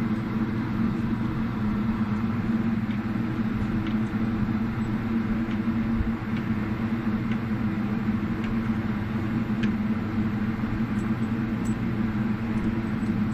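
Steady low mechanical hum, typical of an indoor firing range's ventilation fans, with a few faint clicks scattered through it.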